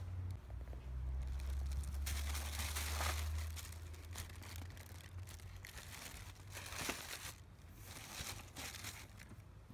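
Tissue paper wrapping in a boot box rustling and crinkling as hands fold it back and handle the boots, in several bursts. A low rumble sits under the first few seconds.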